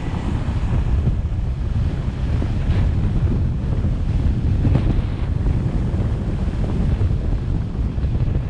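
Wind buffeting the microphone of a camera on a moving car: a dense, unsteady low rumble with road noise beneath it.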